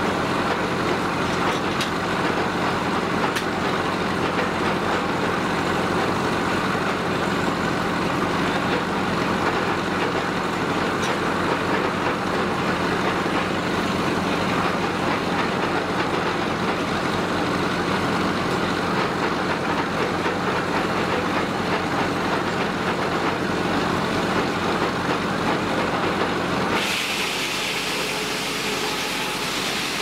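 Vintage sawmill running, its power engine and circular saw making a steady mechanical din with a regular low chug. Near the end the sound changes abruptly: the low chug drops away and a brighter hiss takes over.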